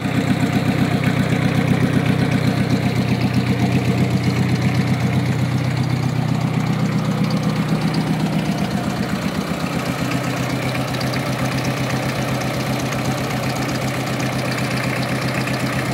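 VW Polo diesel engine in a Gutbrod 1050 garden tractor running at idle with a fast, even pulse. It drops back from a higher rev right at the start and settles a little lower partway through.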